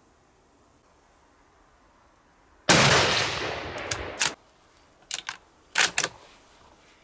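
A single shot from a Los-145 bolt-action rifle in .308 Winchester (7.62×51), a sharp crack about two and a half seconds in, followed by a long echo that dies away over about a second and a half. Then a few metallic clicks as the bolt is opened, drawn back and pushed home to eject the case and chamber the next round.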